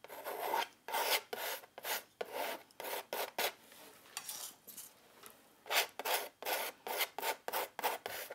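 Metal palette knife scraping and spreading paint across a stretched canvas in quick, repeated strokes, about three a second. The strokes go quieter for a couple of seconds around the middle, then come thick and fast again near the end.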